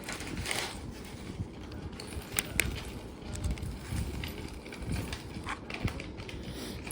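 Lego bricks clicking and clattering as they are handled, in scattered sharp clicks over a low handling rumble.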